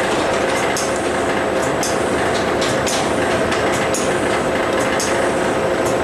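Packaging machine running: a steady mechanical clatter with repeated short, high clicks or hisses about twice a second as its mechanisms cycle.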